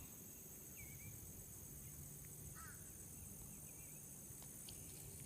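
Quiet outdoor ambience: a faint, steady, high-pitched insect drone, with a few faint short chirps.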